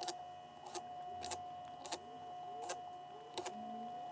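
Small electric screwdriver running with a steady whine while driving screws into a laptop's plastic bottom case, with a sharp click about every half second to second.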